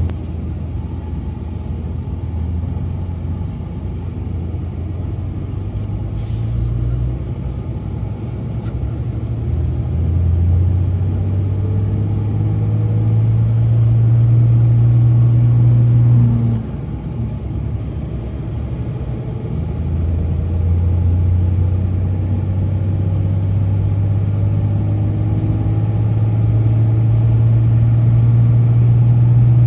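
Pickup truck engine pulling a trailer on the road, a steady low drone that climbs in pitch as the truck accelerates, drops suddenly a little past halfway as it shifts gear, then climbs again.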